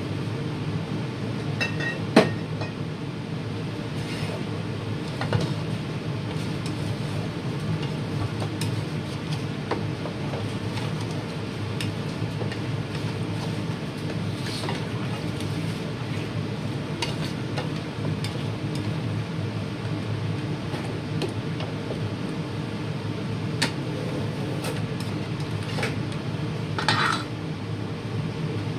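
A cooking utensil stirring goat meat in a large metal wok, with scattered clinks and scrapes against the pan over a steady low hum. A sharp knock about 2 s in is the loudest sound, and there is a short clatter near the end.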